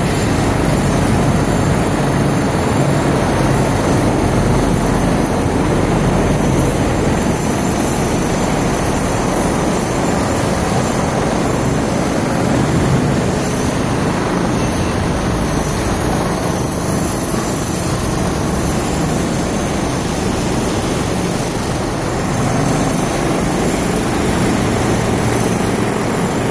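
Concrete-cutting equipment running with its engine-driven power unit: a loud, steady machine noise that holds without a break.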